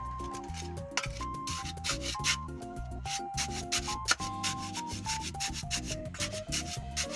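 Background music: a melody of changing notes over a bass line, with a steady rhythm of crisp, scratchy percussion strokes.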